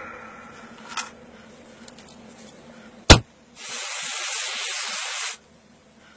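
Comic sound effect of a swollen, water-filled belly deflating: one sharp pop about three seconds in, then a steady spraying hiss for nearly two seconds that stops suddenly.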